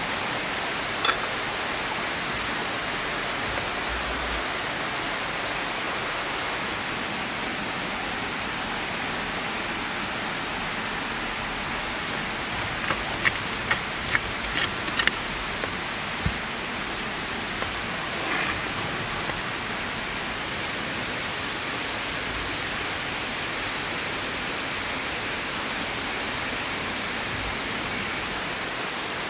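Wood fire burning in a clay oven, with a cluster of sharp crackling pops about halfway through, over a steady rushing hiss.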